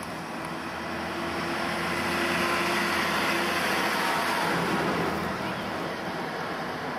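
Vintage double-decker bus driving past close by: its engine grows louder and then eases off as it goes by, over a steady low hum.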